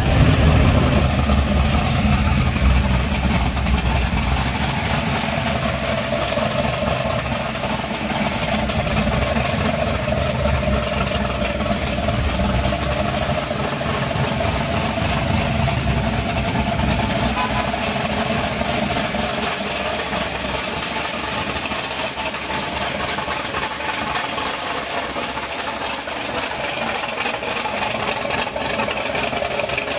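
Car engine idling with a low rumble that weakens a little past halfway.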